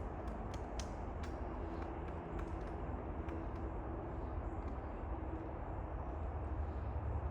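Pileated woodpecker pecking at a tree: a run of sharp, irregular taps that stops about two and a half seconds in. A steady low rumble runs underneath.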